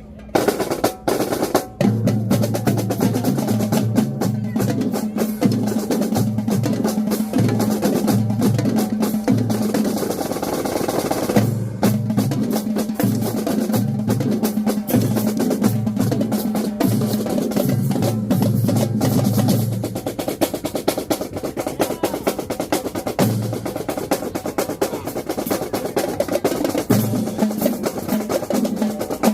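Marching drumline playing a cadence: rapid snare drum strokes and rolls over a repeating pattern of pitched bass drums. A few separate hits come first, and the full beat starts about two seconds in. The bass drum pattern thins out over the last third.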